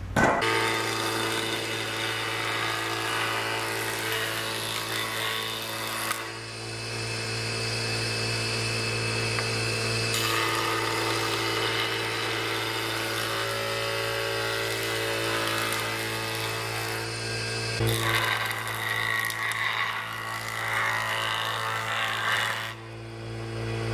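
Electric jointer running, its motor humming steadily while boards are fed across the cutter head; the cutting noise changes a few times.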